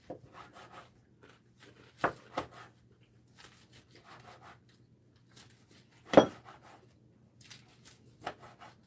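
Kitchen knife slicing through a roll of gimbap on a wooden cutting board: a series of short scraping strokes as the blade saws through the seaweed-wrapped rice, with a few sharper knocks of the blade on the board, the loudest about six seconds in.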